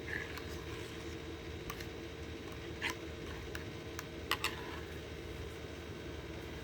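A few light taps of kitchenware, one about three seconds in and two close together a little after four seconds, over a steady low hum.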